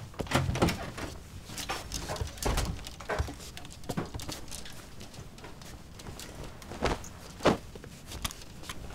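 Rummaging in a clothes closet: clothes rustling and hangers and the closet door clacking, with scattered irregular knocks and thuds, the loudest near the end.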